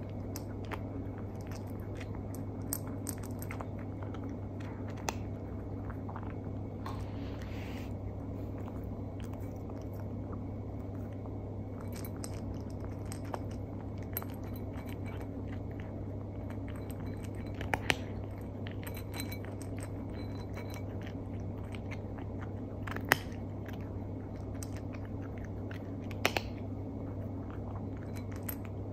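Scottish Fold cat crunching dry food: a run of small crunches and clicks, with a few sharper clicks in the second half.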